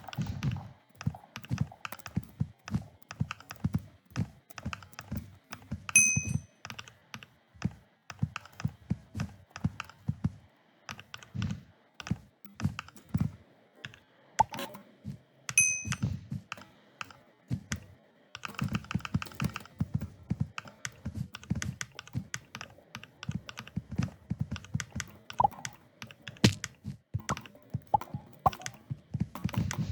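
Computer keyboard typing in quick, uneven runs of key clicks and dull thuds, picked up by a poor-quality microphone. Twice a brief high beep sounds over it.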